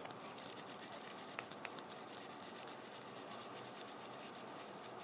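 Faint scratching and rubbing as a small metal AR-10 bolt part is scrubbed by hand over a rag, with two light clicks about one and a half seconds in.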